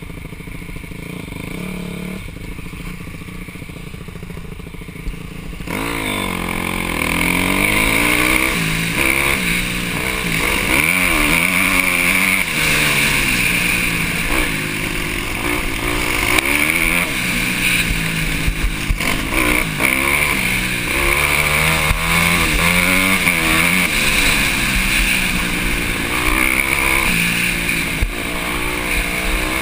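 Dirt bike engine heard from a bike-mounted camera, quiet and steady for the first six seconds or so, then opening up and revving up and down repeatedly as the bike is ridden along a trail.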